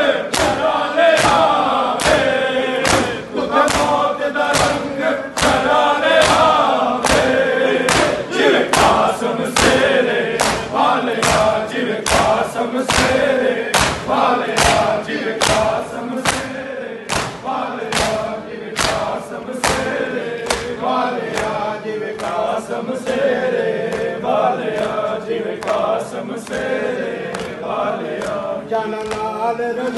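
A group of men chanting a noha in unison while beating their chests in matam, the hand-on-chest slaps falling at a steady beat of about three every two seconds under the voices.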